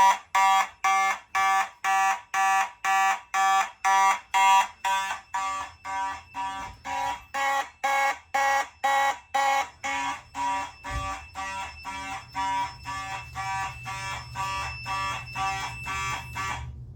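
Fire alarm horn sounding in march time, about two blasts a second, during a fire alarm system test. It stops abruptly near the end. A faint steady high whine runs beneath it from about ten seconds in.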